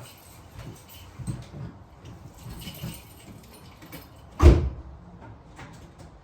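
Keys jangling and small handling clicks, with one loud thump of a car door shutting a little past halfway through, as the driver gets into the car before a cold start.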